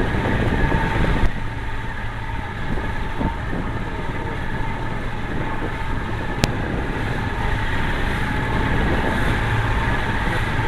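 Motorboat engine running steadily under way, with a single sharp click about six and a half seconds in.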